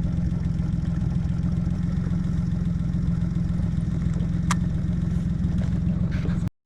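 Boat motor idling steadily with a low drone. It cuts out for a moment near the end.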